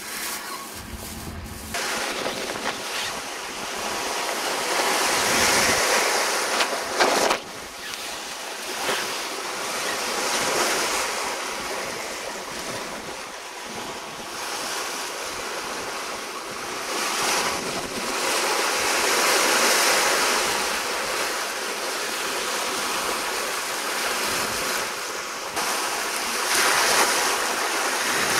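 Seawater rushing and splashing along the hull of a sailing yacht under way, with wind buffeting the microphone. The rush starts about two seconds in, after a quieter opening, and then swells and eases with the waves.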